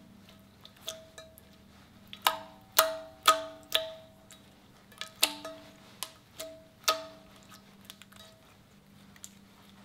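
Slime being pressed and stretched by hand, giving off sharp clicking pops as air pockets burst, each with a short ringing tone. The pops come irregularly, about a dozen of them, and are loudest between two and four seconds in.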